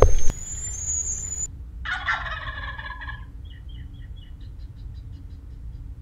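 Wild turkey gobbling: one loud rattling gobble about two seconds in, followed by a run of short quick notes. A brief loud low noise comes right at the start.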